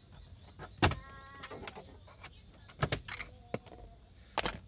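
Plastic lower-dash side trim panel being pried off with a trim removal tool: sharp clicks as its retaining clips pop loose, the loudest about a second in, followed at once by a brief squeak of plastic.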